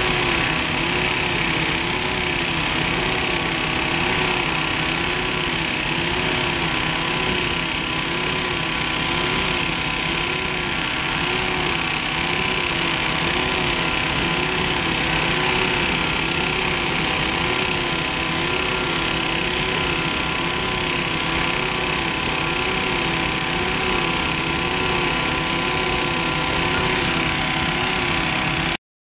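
Gunite spraying rig running steadily: engine-driven compressor and gun pneumatically blasting a cement-and-sand mix through the hose. A constant hiss with a hum whose pitch wavers up and down about every second and a half.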